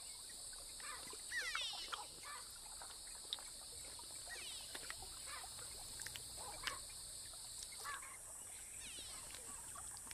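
Wetland ambience: a steady chirring of insects with scattered bird chirps and descending trilled calls. The insect chirring cuts out about eight seconds in.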